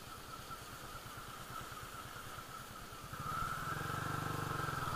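Hero Splendor motorcycle's small single-cylinder engine running at a steady low beat, growing louder about three seconds in.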